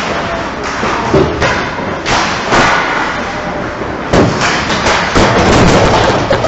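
Ice hockey play heard up close: skates scraping the ice and sticks clattering, with loud thumps about two seconds in and again around four and five seconds in.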